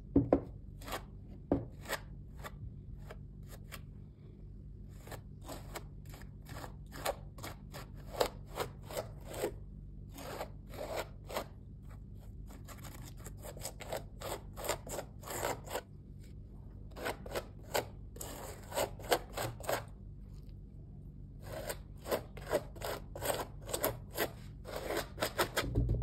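Metal palette knife scraping and spreading thick texture paste across a canvas in short, repeated strokes, coming in bursts with brief pauses between them. A couple of sharp knocks sound near the start.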